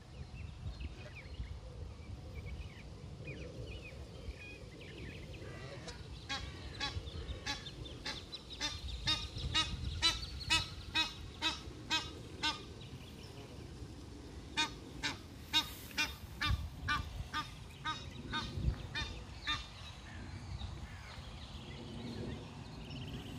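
Egyptian geese honking: a long series of short, evenly spaced calls, about two a second, starting about six seconds in, pausing briefly, then starting again about fifteen seconds in.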